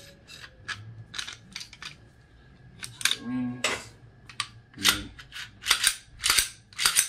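Steel anti-blowup tool being worked by hand, its spring-loaded dogs and mandrel clacking: a run of sharp metal clicks that grows louder in the last couple of seconds, with about five hard clacks near the end.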